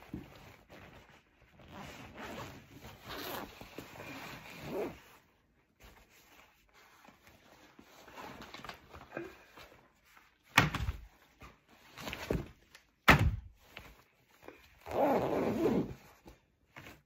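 A fabric backpack being unzipped and rummaged through for homework, with rustling and handling noise. Two sharp knocks about ten and thirteen seconds in, as things are set down on the table, and a longer scuffle near the end.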